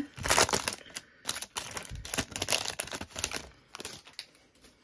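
Foil booster-pack wrapper crinkling as it is torn open and the trading cards are slid out, a rapid run of small crackles and clicks that thins out near the end.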